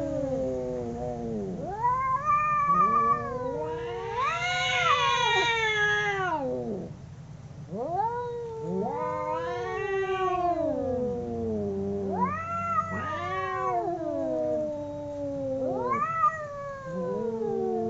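Two domestic cats caterwauling, the drawn-out yowls of a cat fight. Long wailing calls rise and fall in pitch, sometimes overlapping as the two answer each other, with a brief lull about seven seconds in.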